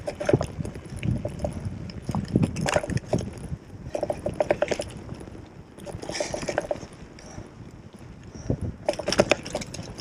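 Gravel bike rattling and clattering over a rough, potholed dirt road, with tyres rumbling on loose gravel. The rattling comes in irregular bursts as the bike hits bumps.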